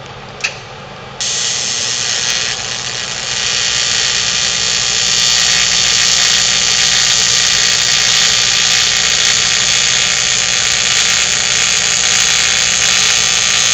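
Welding arc running in a long, steady bead: a loud continuous crackling hiss with a faint buzz that starts about a second in and grows a little louder a couple of seconds later.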